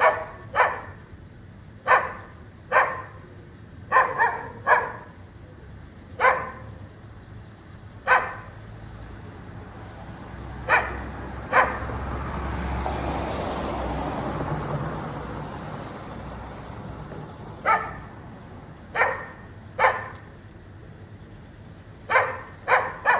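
A dog barking in short, separate barks, some single and some in quick pairs or threes, with gaps of one to several seconds. Midway, during a longer pause in the barking, a passing vehicle's noise swells up and fades away.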